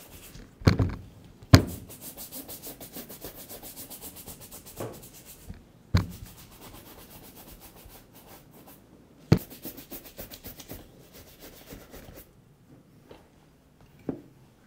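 Horsehair shoe brush swept briskly over a leather boot's upper in two bouts of quick, rhythmic strokes, working leftover shoe cream into the leather. Several sharp knocks come in between.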